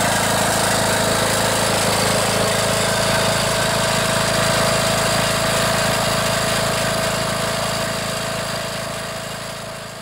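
18.5 hp Briggs & Stratton Intek OHV single-cylinder engine of a riding lawn mower running steadily on its own, now that its fouled spark plug has been replaced. The sound fades out near the end.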